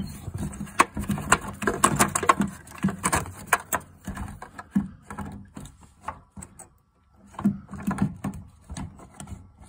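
Plastic fuel pump module clicking and knocking against the tank opening as it is worked in by hand, its float-arm sending unit and strainer sock being fed down into the fuel tank. A quick, irregular run of clicks and rattles, thinning out about four seconds in, with a short lull a little past halfway before a few more.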